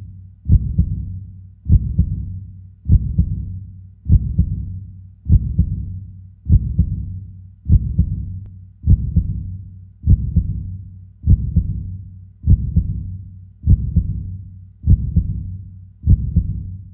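Heartbeat sound effect: a low thump repeating steadily about every 1.2 seconds over a low hum.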